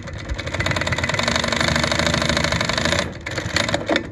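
Consew 339RBATCWL(N) double-needle walking foot industrial sewing machine stitching through two layers of heavy fabric, a fast even chatter of stitches. It picks up about half a second in and runs at speed until about three seconds in, then slows to a few separate clacks and stops.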